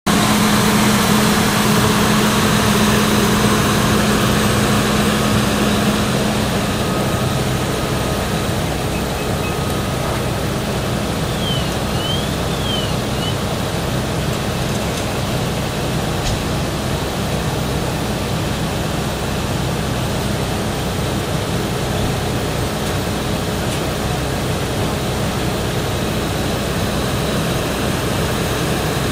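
A large engine runs steadily: a loud, even drone with a low hum, slightly louder for the first six seconds.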